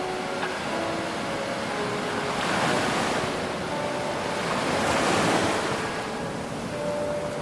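Ocean surf washing in, with two waves swelling louder about three and five seconds in.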